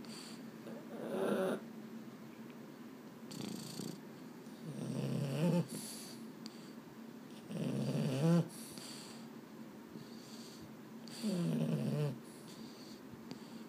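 A Boston terrier snoring as it dozes: four rasping snores about three seconds apart, with a fainter one between the first two. This kind of snoring is typical of the breed's short, flat muzzle.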